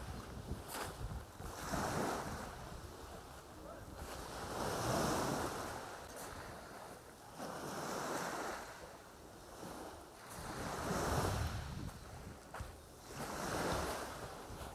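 Sea waves breaking and washing up the beach, swelling and fading about every three seconds.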